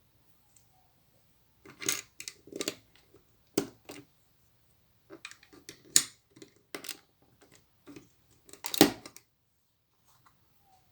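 Plastic Lego pieces clicking and tapping as they are handled and pressed together: a scattered run of short clicks, the loudest about six seconds in and near the end.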